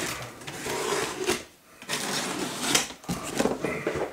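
Cardboard shipping box being handled and shifted on a table: irregular scraping and rustling of cardboard, with a brief lull about a second and a half in.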